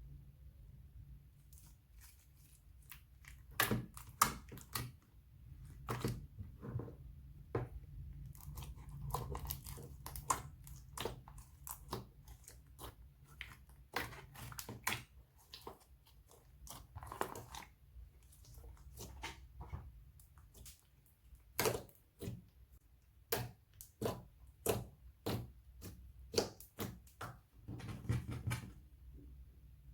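Slime being squeezed and kneaded by hand, giving off irregular wet clicks and pops, with a steady low hum underneath.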